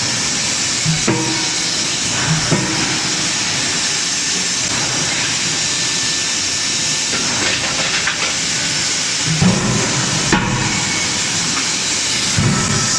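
Anyang C92K-63KJ CNC hydraulic closed-die forging hammer striking hot metal, a few sharp blows at irregular intervals, over a loud steady hiss.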